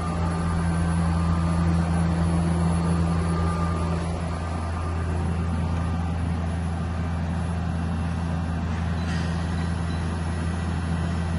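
Spindle of an Okuma Space Turn LB3000EX CNC lathe running at a constant speed during a spindle test: a steady low hum with a whir over it.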